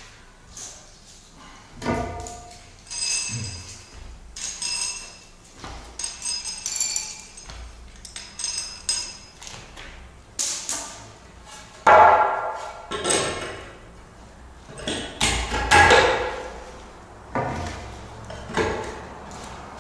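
Steel nuts and washers clinking and ringing as they are handled and run onto threaded anchor studs for adjustable floor joists, with heavier knocks about twelve and sixteen seconds in.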